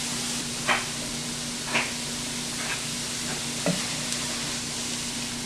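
Chopped ponnanganni greens sizzling in a nonstick frying pan over high heat, stirred with a wooden spatula that scrapes the pan about once a second, four times. The stirring keeps the greens from scorching while their water cooks off. A low steady hum runs underneath.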